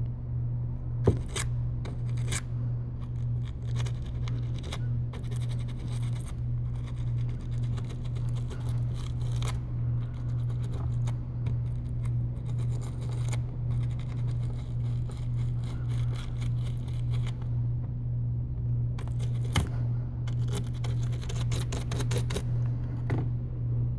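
Sharp metal tweezers scraping and clicking inside a phone's USB charging port as dust is picked out from around the pins, in irregular small scratches and ticks. A steady low hum runs underneath throughout.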